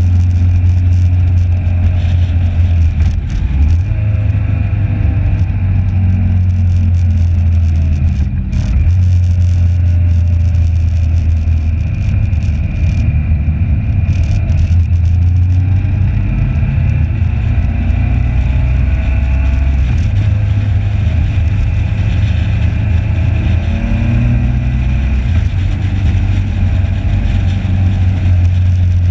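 Motorcycle engine running steadily under way at track speed, a loud low drone that shifts in pitch a few times with throttle, mixed with wind noise on the bike-mounted microphone.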